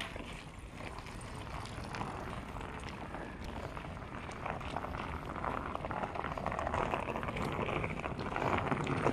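Outdoor city ambience: a steady wash of street noise with faint scattered clicks and footfalls, slowly growing louder toward the end.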